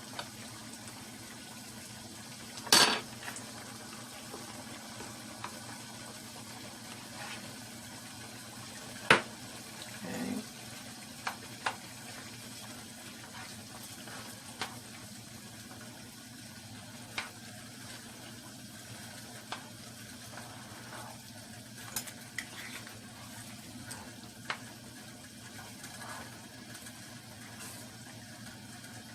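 Chicken and onions sizzling in a pot, a steady hiss, while a spoon is stirred through them, clinking and scraping against the pot now and then. Two louder knocks come about three and nine seconds in.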